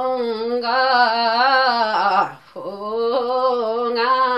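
A woman singing a Yakthung Limbu palam unaccompanied: two long held phrases with a wavering pitch, broken by a short breath about two and a half seconds in.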